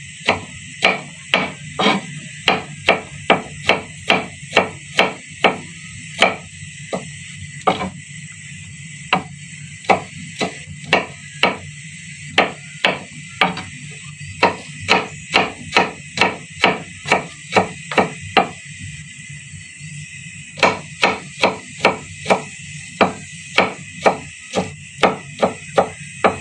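Kitchen knife chopping garlic into small pieces on a cutting board: a steady run of sharp knocks, about two to three a second, stopping briefly twice.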